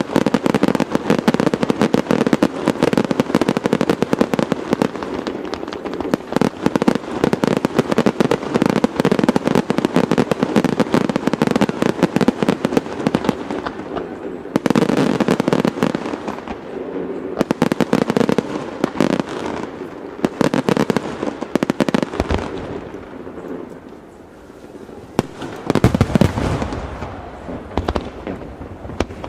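Fireworks display: a dense barrage of rapid bangs and crackles for about the first half, then more widely spaced bursts that thin out, with a few heavier, deeper booms near the end.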